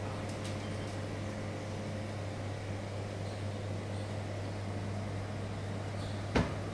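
Steady low electrical hum over room noise, with one short knock near the end.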